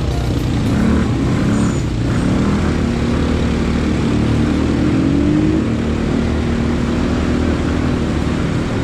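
ATV (quad bike) engine running while riding a dirt trail, its note rising and falling with the throttle and climbing about midway.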